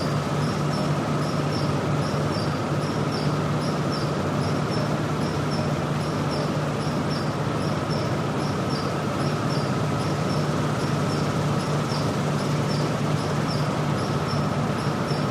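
Steelworks machinery ambience: a steady, unbroken industrial noise with a strong low hum and a higher steady tone, over which a high-pitched chirping repeats evenly, about two to three times a second.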